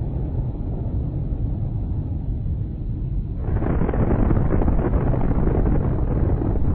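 Sound of a nuclear explosion: a deep, continuous rumble that grows louder and fuller about three and a half seconds in.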